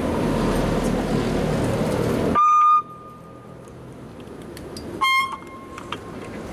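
A steady hiss that cuts off abruptly as a short, high-pitched beep sounds, with a second short beep about two and a half seconds later.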